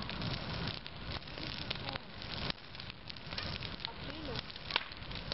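Bonfire of dry grass crackling with a steady hiss and scattered sharp pops, a louder pop near the middle and another near the end.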